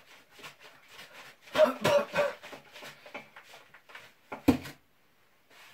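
Sugar poured and shaken from a container into a steaming pot, a run of small rattling taps, with a man's voice briefly about a third of the way in and a sharp knock about three-quarters through.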